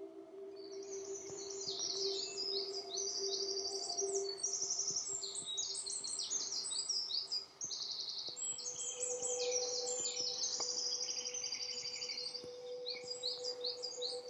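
Several songbirds singing at once, dense overlapping chirps and trills. Underneath runs a steady low drone that shifts to a new pitch a little over halfway through.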